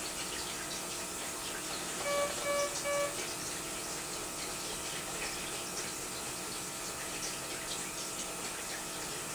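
Three short, evenly spaced electronic beeps from a patient vital-signs monitor about two seconds in, over a steady hiss.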